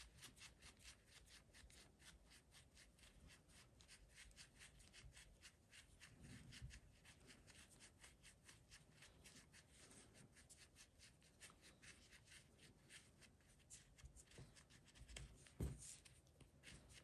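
Faint rustling and rubbing of hands pushing fiberfill stuffing into a crocheted amigurumi head, a quick run of soft scratchy ticks, with a light knock near the end.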